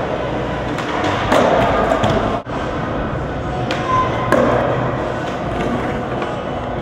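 Skateboards on plywood ramps: wheels rolling over steady echoing hall noise, with several sharp knocks of boards popping and landing on the wood.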